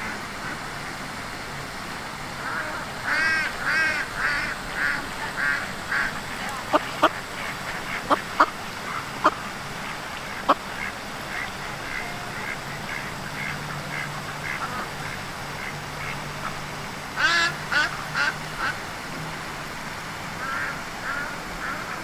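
A duck quacking in runs of short calls at about two a second, with a pause in the middle. Several sharp clicks, the loudest sounds, come in that pause.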